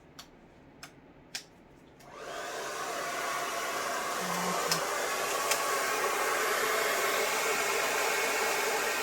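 Hair dryer switched on about two seconds in, blowing steadily for about seven seconds, then switched off. A few light clicks come before it.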